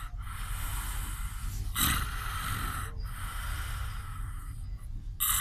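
Snoring: a run of noisy, hissing breaths, each lasting a second or so, one after another, with the loudest about two seconds in.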